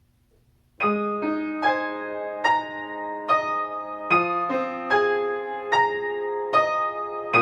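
Choral-song piano accompaniment played on an electronic keyboard, beginning about a second in: an even, flowing run of single notes, about two and a half a second, over held lower notes.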